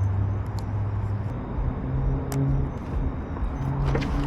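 Motor vehicle noise: a steady low hum over a haze of road noise, with the hum's pitch shifting about halfway through.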